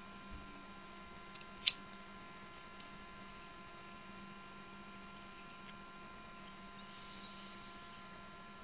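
Steady electrical hum throughout, under a quiet hit from a small glass hand pipe. A lighter clicks sharply once about a second and a half in, and a faint breathy exhale of smoke comes near the end.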